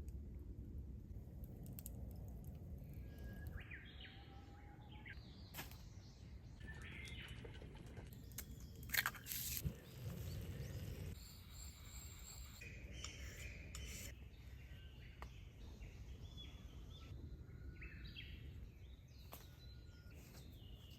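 Birds chirping and calling over faint outdoor background noise, with a brief sharp knock about nine seconds in, the loudest sound.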